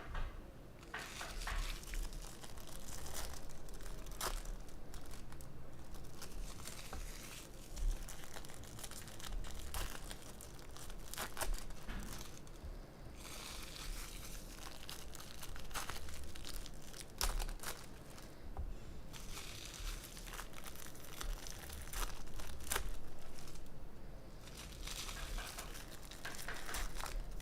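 2023 Bowman jumbo baseball card packs being torn open by hand, the wrappers crinkling and tearing with many sharp crackles.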